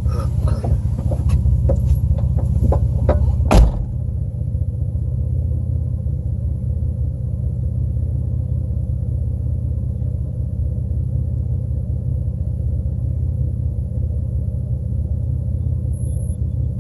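Clicks and rustling as someone climbs out of a vehicle, then a car door shuts with a thud about three and a half seconds in. After that the vehicle's engine idles with a steady low rumble, heard from inside the cab.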